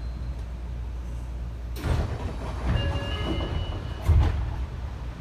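Passenger doors of a Seibu 20000-series train car sliding, over the steady low hum of the stopped train. A sudden burst about two seconds in, then a short door chime of several tones, and about four seconds in a loud thud as the doors reach the end of their travel.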